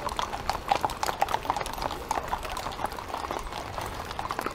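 Hooves of several horses walking on asphalt road, an irregular, overlapping clip-clop of many sharp hoof strikes.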